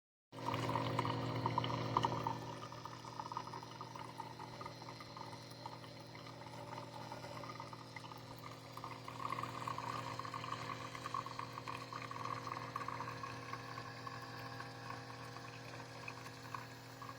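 Keurig K-Mini single-serve coffee maker brewing: a steady pump hum with liquid streaming and pouring into the cup, louder for the first couple of seconds.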